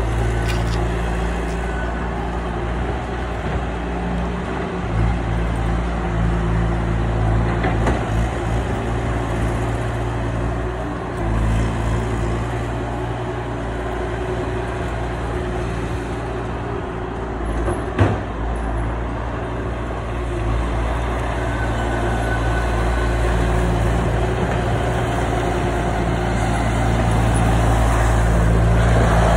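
A large engine running steadily at an even speed, with one sharp knock about eighteen seconds in and the engine growing a little louder near the end.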